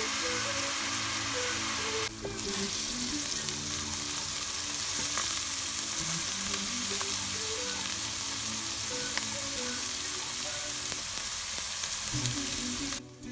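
Finely chopped onion sizzling steadily in hot oil in a pot while a wooden spatula stirs it. The sizzle gets louder about two seconds in and cuts off abruptly near the end.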